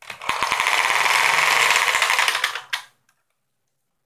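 Adhesive tape being pulled off its roll: a loud, rasping rip with fast crackling, lasting about three seconds and stopping abruptly.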